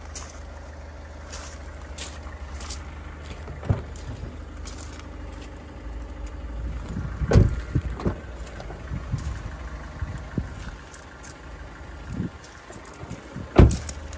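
Mazda CX-7 2.2 diesel engine idling with a steady low rumble. Around the middle come a few clunks as the front door handle is pulled and the door opened, and near the end a single loud thump.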